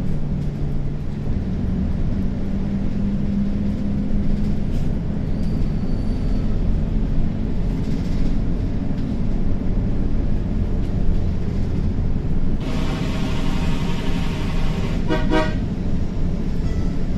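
Samco City CNG city bus under way: steady low engine and road rumble. About three-quarters of the way through, a vehicle horn gives one long blast of about two seconds, then a short toot.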